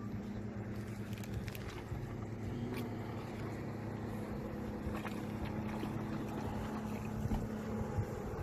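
Boat motor idling with a steady low hum, under wind noise, with a few faint ticks.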